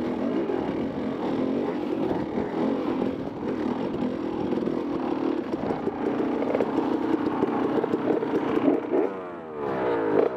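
Dirt bike engine running as the bike rides a rough trail, heard from the rider's helmet camera with rattle from the ride. About nine seconds in the engine drops off briefly, then its pitch climbs steeply.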